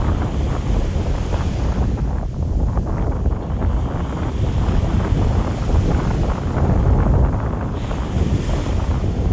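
Wind buffeting the microphone in a steady low rumble, with the wash of the sea beneath it.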